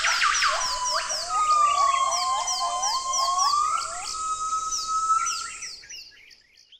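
Bird-like chirping: rapid, evenly repeated high chirps about four a second over lower chirps and a long whistle-like tone that glides down and back up. It fades out near the end.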